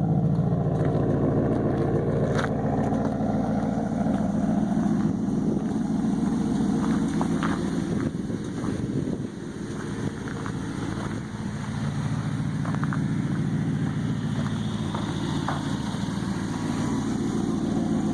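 Maserati GranTurismo S's 4.7-litre V8 idling steadily in neutral, heard at the exhaust. The sound drops briefly about nine seconds in, and there are a few faint clicks.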